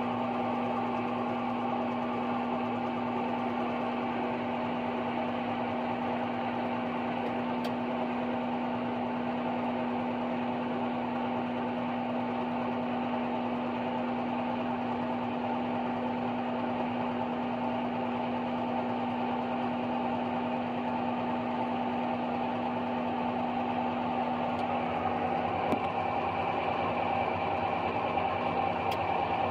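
New Holland FX28 self-propelled forage harvester chopping standing corn, with the tractor pulling the silage wagon alongside: a steady mechanical drone with a constant low hum. About 26 seconds in the low hum drops out and the drone grows a little louder as the machines come nearer.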